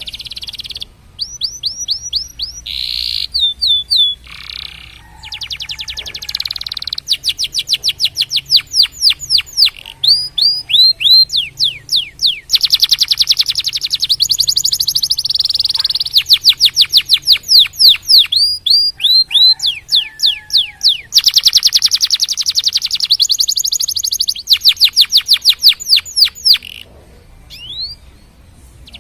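Domestic canary singing a long, loud song made of fast trills: runs of rapid repeated high notes, each sliding downward, changing from one trill to the next with short pauses between runs.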